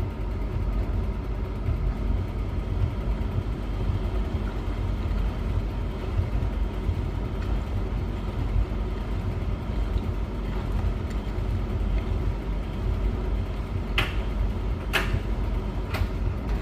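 Beko WS832425s washing machine running its turbo rinse with a badly unbalanced load, a steady low rumble as the machine rocks. Three sharp knocks come about a second apart near the end.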